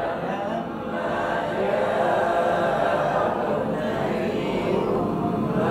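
Many voices reciting Quranic Arabic together in unison, a class repeating a verse after its teacher. The overlapping voices keep a steady chanted flow throughout.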